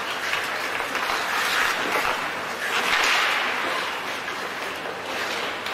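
Rink sound of an ice hockey game in play: skates scraping the ice and sticks and puck clacking over the hall's rushing background noise, swelling about two and three seconds in.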